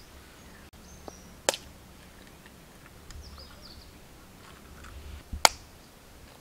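Two sharp cracks of eggshells being struck to break the eggs over flour on a steel plate, the second, near the end, much louder. Faint bird chirps in the background.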